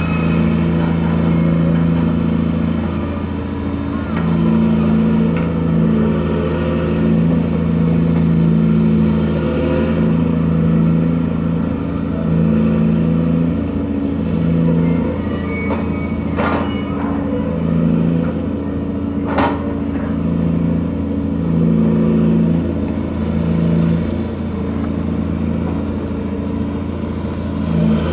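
Grab crane machinery on a gut ship (sand-and-gravel carrier) running during cargo handling: a constant low hum with a higher note that comes and goes every few seconds, and two sharp clanks about two-thirds of the way through.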